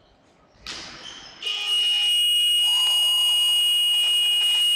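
Electronic scoreboard buzzer in a sports hall sounding one long, steady, high-pitched tone, starting about a second and a half in, marking the end of play in a floorball game. A short burst of noise comes just before it.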